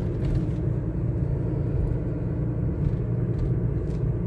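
A car's engine and tyres on a wet road make a steady low rumble, heard from inside the cabin while driving slowly.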